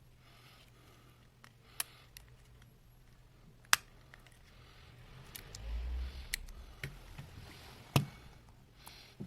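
Sharp clicks and taps of small metal tools and phone parts being handled on a workbench during a smartphone repair: about six scattered clicks, two of them louder, with a short low rumble in between.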